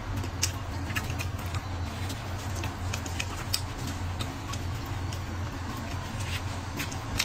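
Steady low background hum with scattered faint clicks.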